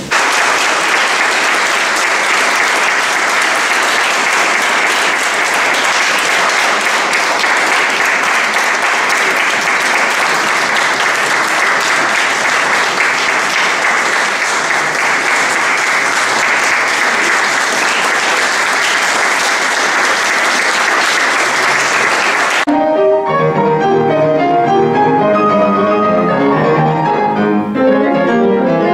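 Audience applauding steadily for about twenty seconds. The sound then cuts suddenly to a grand piano being played.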